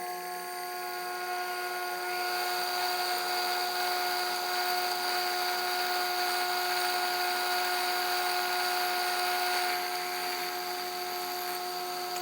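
Sherline mini mill's spindle motor running at steady speed with a high whine while drilling a tap-drill hole for a 6-32 thread. It gets louder and noisier from about two seconds in until near ten seconds in.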